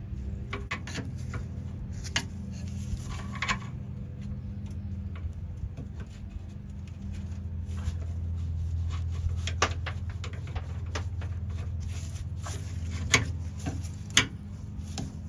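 Scattered clicks and taps of a flathead screwdriver prying at the plastic tube fitting on a Ford F-150 spare tire hoist, working it loose. A steady low hum runs underneath.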